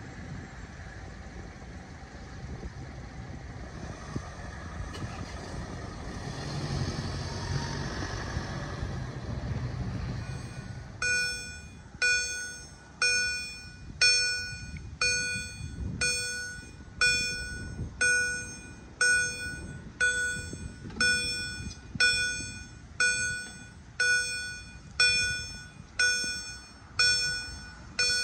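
Railway level-crossing warning bell starts about 11 seconds in and rings steadily about once a second, each stroke ringing out and fading. Before it, the rumble of a passing vehicle swells and fades.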